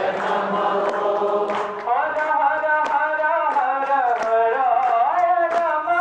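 Devotional bhajan singing by a group, with a regular percussion beat of short sharp strikes. About two seconds in, a clearer, held melody line comes in.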